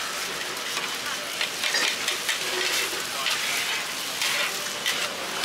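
Scrambled eggs sizzling on a large flat pan while two metal spatulas scrape and chop through them, the scraping strokes coming about once a second over the steady sizzle.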